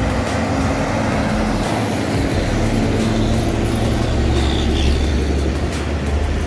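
Diesel engines of heavily loaded trucks and a bus passing close by on a highway, a continuous low engine drone over tyre noise that is strongest as a large box truck goes past about four to five seconds in.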